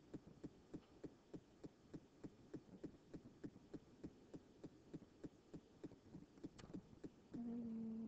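Faint, evenly spaced clicking, about three to four clicks a second, then a steady hum-like tone for about a second near the end.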